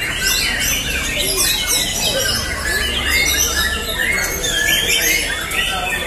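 Many caged white-rumped shamas (murai batu) singing at once in competition, their loud whistled phrases and chirps overlapping without a break.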